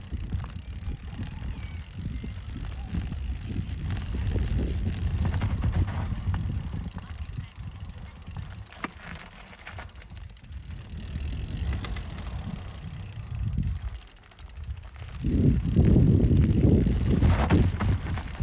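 Mountain bike riding a rough trail: tyres rumbling over the ground and the bike rattling and clicking. After a short lull about fourteen seconds in, the rumble is at its loudest near the end.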